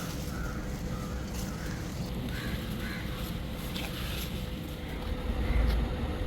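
Crows cawing, a quick run of short caws followed by scattered ones, over a steady low rumble that grows louder near the end.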